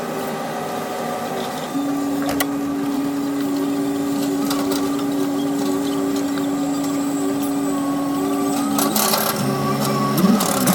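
Caterpillar 320C hydraulic excavator at work: the machine runs steadily, and a strong steady whine comes in about two seconds in. The whine stops near the end, and lower, stepped tones follow in the last second or so.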